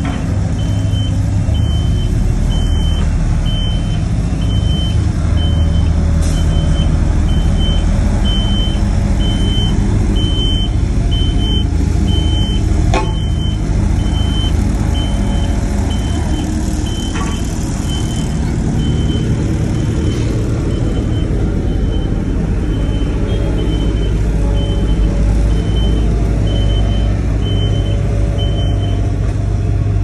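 Pneumatic-tyred road roller's engine running with a steady low rumble, and a reversing alarm beeping steadily, about three beeps every two seconds, that stops shortly before the end.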